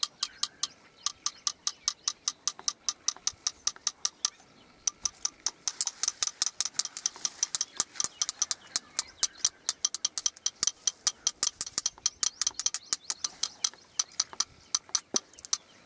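Rapid, regular clicking, about five clicks a second, with a short break about four seconds in.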